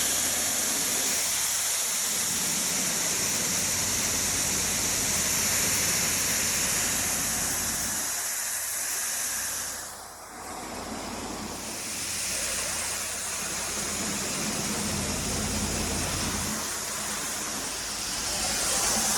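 Steiger tractor running, heard from inside its cab, with a strong steady hiss over the engine rumble. The sound dips briefly about ten seconds in, then carries on with a lower hum.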